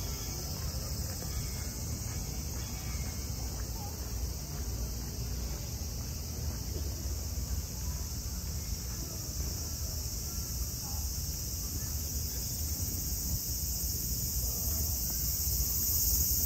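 Insects droning steadily in the trees, a continuous high-pitched buzz, over a low steady rumble.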